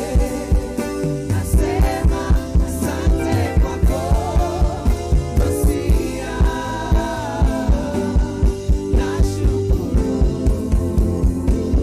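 Live gospel praise band playing an upbeat song: a steady, evenly spaced kick-drum beat under bass and sustained keyboard chords, with a wavering lead melody through the middle.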